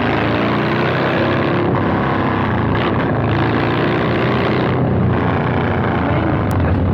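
Harley-Davidson Milwaukee-Eight 117 V-twin running under way through a Two Brothers 2-into-1 exhaust, its note rising and falling a little with the throttle.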